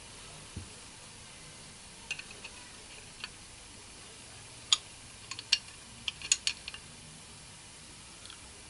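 Metal spanner clicking and clinking against the steel nozzle fitting of an air blow gun as it is tightened: a dozen or so irregular sharp clicks, thickest in the second half, over a steady background hiss.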